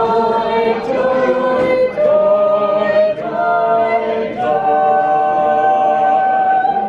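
A four-voice SATB quartet of two men and two women singing a Christmas carol a cappella, closing on a long held chord about two and a half seconds long that cuts off near the end.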